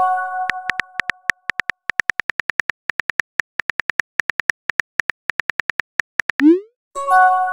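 Texting-app sound effects: rapid keyboard typing clicks, about five a second, as a message is typed out. A chime of several bell-like tones rings at the start. Near the end a short rising swoosh and another chime mark a message being sent.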